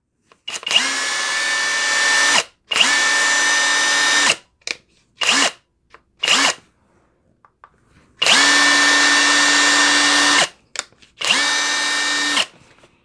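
Half-inch-drive brushless cordless impact wrench run with no load. It makes four trigger pulls of one to two seconds each and three short blips. Each time the motor spins up quickly to a steady whine and then cuts off, with no hammering.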